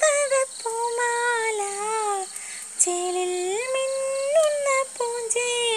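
A woman singing a Malayalam children's song in long, slowly wavering held notes, with a short breath break about halfway through.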